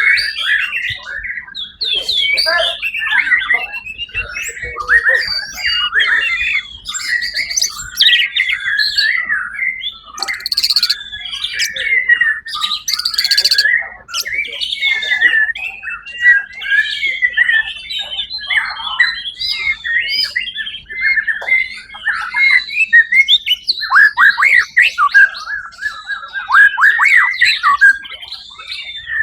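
White-rumped shama (murai batu) singing a long, unbroken, varied song of rapid whistled phrases and trills, with a couple of harsh rasping notes about ten and thirteen seconds in.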